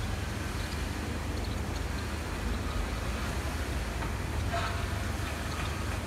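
Steady low rumble and hiss of outdoor background noise.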